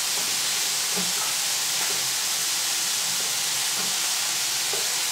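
Onions and garlic sizzling steadily in olive oil in a frying pan on a gas hob, browning gently.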